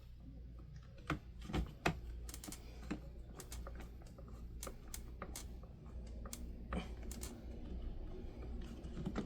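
Irregular sharp clicks and taps of plastic parts being handled on a Honeywell HT-900 desk fan, as its front guard is worked into line with a screw hole. There is a quick run of clicks in the first two seconds, then more scattered ones.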